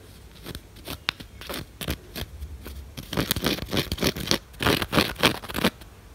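Henna powder being sifted through a fine metal mesh sieve: a run of short scratchy strokes, light and spaced at first, then louder and quicker, about four a second, from about halfway until shortly before the end.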